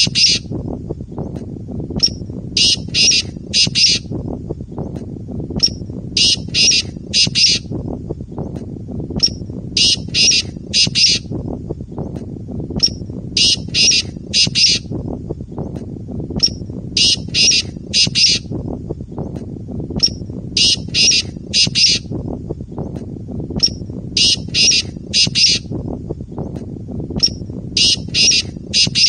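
Male black francolin (kala teetar) giving its territorial call: a short opening note followed by three harsh, grating notes, repeated about every three and a half seconds, eight times. Steady low background noise runs underneath.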